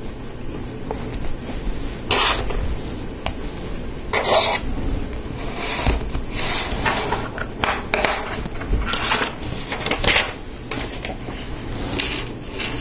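Plastic Lego Technic parts handled and pressed together by hand: a series of short, irregular clicks and scrapes as a gear is fitted onto an axle and pieces are set down on the tabletop.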